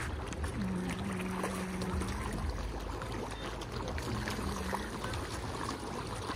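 Open-air lakeside ambience: a steady rushing noise with scattered small ticks, and a low hum held for a second or two, heard twice.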